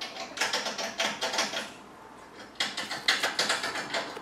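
Two bursts of dense crackling rustle as manga volumes are handled, the second about two and a half seconds in.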